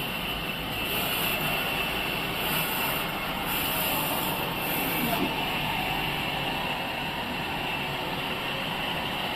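Sawmill machinery running steadily, with a thin, steady high whine over the mechanical noise and brief swells of high hiss.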